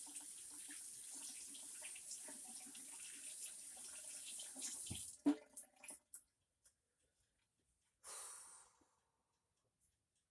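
Kitchen tap running into the sink for about five seconds, with small clinks, ending with a clunk and a few clicks as it stops. A short hiss of water follows about eight seconds in.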